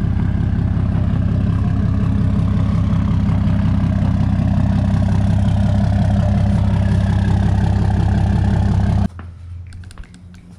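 6.7-litre Cummins inline-six turbo-diesel in a fourth-generation Ram pickup running at low speed as the truck backs in, a steady deep diesel note. The engine sound cuts off suddenly about nine seconds in.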